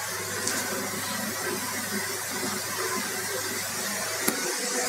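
Steady background hiss with a constant low hum, and a single sharp click about four seconds in.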